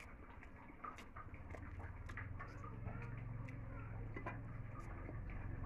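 Hand-eating of rice and dal from a steel plate: soft, irregular small clicks and smacks of fingers working the food on the plate and of the mouth chewing, over a low steady hum.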